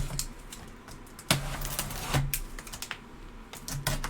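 Packaging being handled and opened by hand: scattered sharp clicks and taps, with a rustle of wrapping lasting about a second, starting about a second in.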